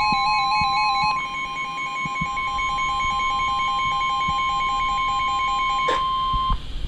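NOAA Weather Radio warning alarm tone, a steady high-pitched 1050 Hz tone, with a second stepping, pulsing alert tone layered over it. Both cut off near the end. Faint crackles of radio static run underneath.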